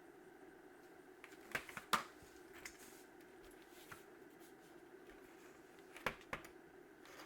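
A furnace filter's cardboard frame being handled and slid in the filter slot: a few sharp knocks and scrapes, in two clusters about two seconds and six seconds in, over a steady hum.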